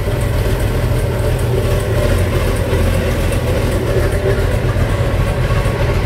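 Boat engine running steadily with a low rumble.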